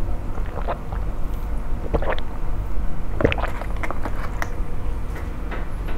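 Iced latte being sipped through a straw: a few short, separate slurping and mouth sounds over a steady low hum.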